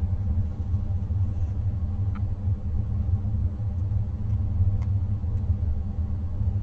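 Steady low rumble of a home heating system running, with a few faint ticks over it.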